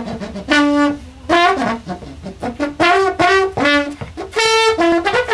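A coiled garden hose played as a horn, lip-buzzed like a bugle, giving a bright brassy tune of short separate notes that step up and down in pitch.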